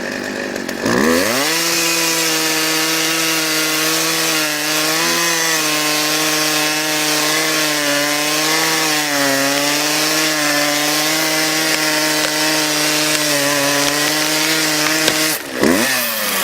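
Gasoline chainsaw revved up sharply about a second in and held at full throttle while cutting wood, its pitch wavering slightly under load. Near the end the revs drop off, then rise briefly again.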